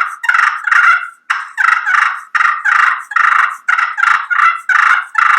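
Fighting purr played on a slate turkey call. The striker is dragged with extra pressure near the outer part of the slate, giving a loud, rapid string of short, rough purring notes, about two to three a second, pitched higher to sound excited, as in turkeys fighting.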